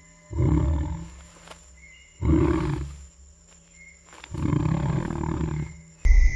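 A large animal roaring three times, each roar about a second long and about two seconds apart. Music comes in abruptly near the end.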